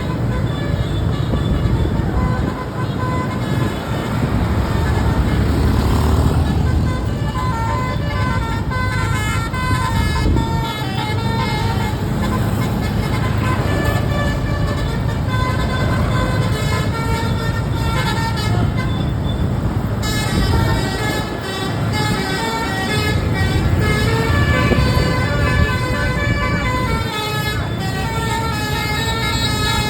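A bus's basuri telolet horn, a multi-note musical air horn, playing melodies of short tones that change pitch in steps, over the low rumble of engine and road noise.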